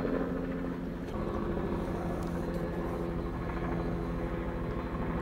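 A large engine running steadily, a constant hum with a fast, even low pulsing.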